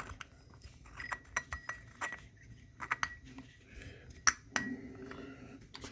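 Small metal-and-glass optical parts clicking and clinking irregularly as an astronomy filter is fitted and threaded onto a field flattener's very fine threads.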